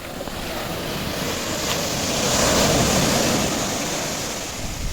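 Sea surf: a wave surges in and breaks, swelling to its loudest about halfway through and washing back down toward the end.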